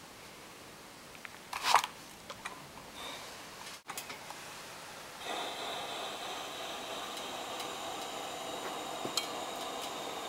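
Fabric strip and a plastic bias tape maker being handled, with one loud rustling knock about two seconds in. From about five seconds, a steady hiss as a steam iron presses the folded strip.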